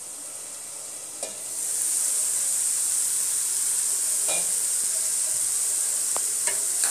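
Grated carrot, ghee and milk sizzling in a frying pan as the milk cooks down for carrot halwa, with a few clicks of the stirring spoon against the pan. The steady sizzle gets louder about a second and a half in.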